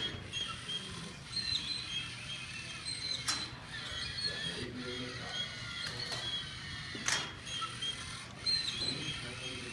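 Chain-link fence climbing robot working on the fence mesh: high, wavering squeaks and whine from its motors and mechanism, broken by several sharp clicks.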